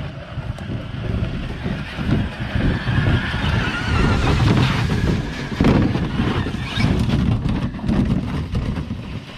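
Electric RC car dragging a plastic boat down a dirt hill on a rope: a rough scraping rumble of the hull and wheels over the ground, with a faint motor whine that rises slowly through the middle. Wind buffets the microphone.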